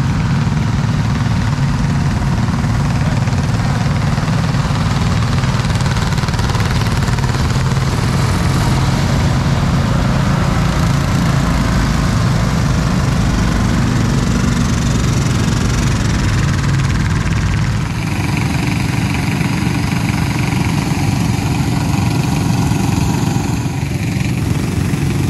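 Small engines of racing riding lawn mowers idling and running together, a steady low drone.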